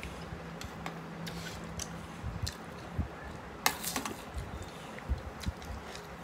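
Eating sounds: fingers and a spoon working biryani rice on metal plates, with small clicks and wet chewing. A sharp crunch about three and a half seconds in, as a raw onion slice is bitten.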